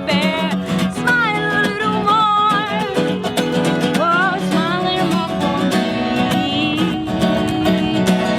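Music: a voice singing with a wavering vibrato over a strummed guitar.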